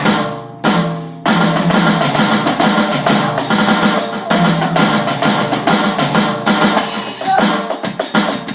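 Drum kit played with the Swiss Army triplet sticking in its reversed left-left-right form, moved onto the tom-toms. Two ringing hits open it, then fast, continuous triplet strokes from a little over a second in.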